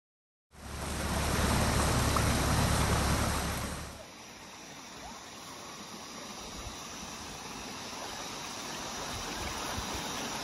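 Creek water running over rocks. For the first few seconds it comes with a heavy low rumble on the microphone. After a cut about four seconds in, the creek runs on as a quieter, steady rush that slowly grows louder.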